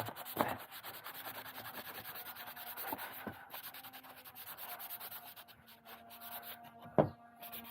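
Fine sandpaper rubbed in quick back-and-forth strokes over the box surface by the latch, roughening it and clearing off old glue before new latch protectors are glued on. The strokes fade after about six seconds, and there is a single sharp tap near the end.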